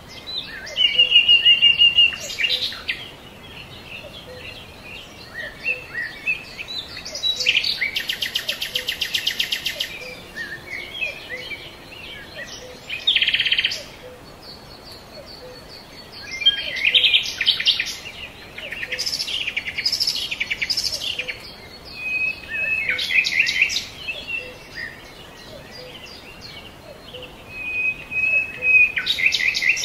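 Birds chirping and singing in repeated bursts with short pauses between, including a fast rattling trill and a few held whistled notes.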